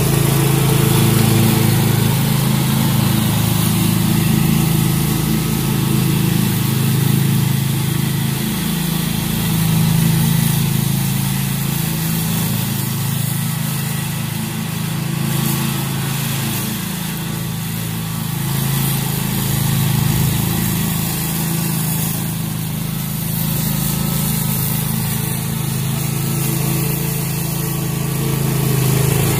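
Scag walk-behind commercial mower's engine running steadily while cutting grass, fainter in the middle as the mower moves away and louder again as it comes back near.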